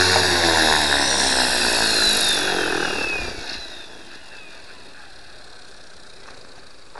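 Align T-Rex 450 Pro electric RC helicopter's brushless motor and rotor head winding down, heard from a camera mounted on the helicopter: the whine and rotor hum fall steadily in pitch and die away about three and a half seconds in, leaving only faint hiss.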